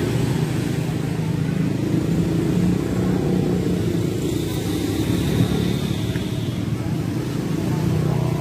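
Steady low hum of an engine running, with outdoor street background noise.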